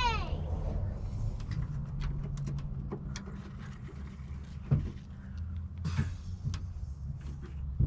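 Scattered light clicks and a few sharper knocks from hand work on a door latch and its cable, over a steady low hum.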